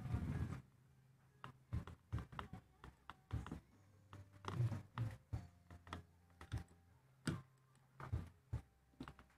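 Irregular light clicks and clinks of a steel saw chain and bar being handled as the chain is fitted around the sprocket of a mini chainsaw attachment on an angle grinder. A cluster of louder knocks comes right at the start, then scattered taps.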